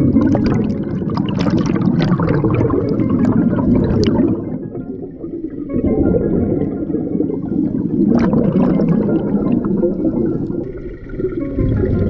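Underwater sound through an action camera's waterproof housing: a dense low rumble with irregular bubbling crackle as scuba divers' exhaled bubbles rise past the camera. The sound eases briefly about halfway through and again near the end.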